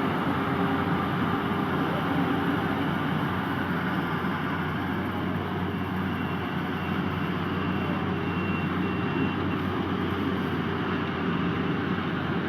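Yanmar YH850 combine harvester's diesel engine and machinery running steadily at working speed.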